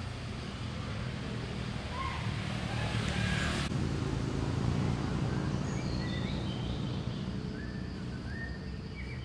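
Outdoor ambience: a steady low rumble, a brighter hiss that cuts off suddenly a little under four seconds in, and scattered short high chirps in the second half.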